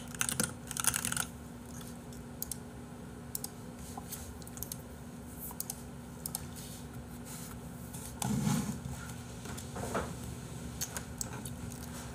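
Typing on a computer keyboard: a quick run of keystrokes at the start, then scattered single key clicks, over a faint steady hum. A brief low noise comes about eight seconds in.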